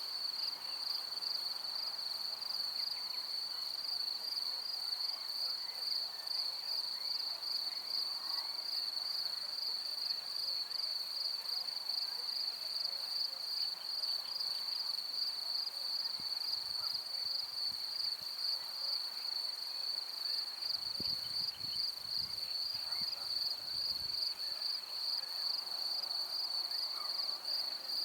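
Crickets chirring steadily in a field: one continuous high-pitched trill with a fast, even pulse. Faint, scattered bird chirps lie underneath, and a brief low rumble comes about three quarters of the way through.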